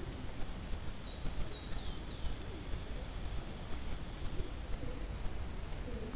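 A steady low rumble and hiss from a trail camera's microphone, with faint calls of a small bird: three quick high notes sliding downward about a second in, trailing into a thin held note.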